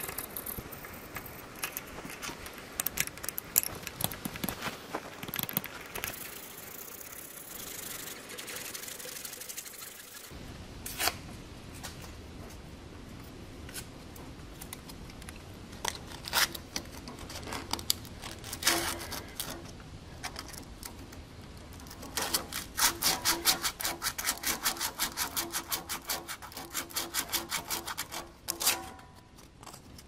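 Sandpaper rubbing back and forth on the cast-iron water-pump mounting face of a Ferguson TO-20 engine block, scouring off old gasket residue. The strokes are scattered at first, then come quick and regular, several a second, in the last third.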